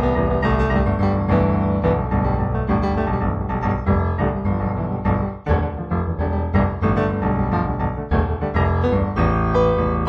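Improvised solo piano music: a steady flow of notes over sustained low chords, with a brief lull about five and a half seconds in.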